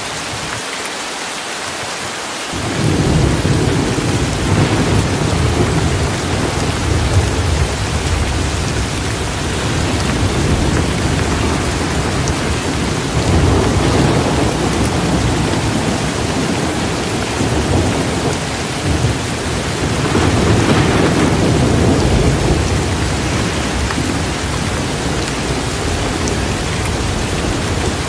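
Steady rain with low rolling thunder that sets in about two and a half seconds in and rumbles on, swelling louder twice.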